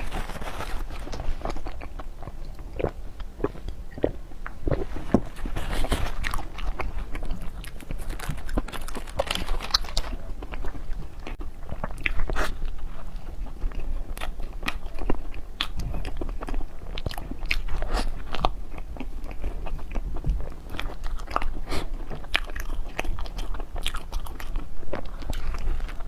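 Close-miked eating: a person biting and chewing crunchy dessert, with many short sharp crunches throughout.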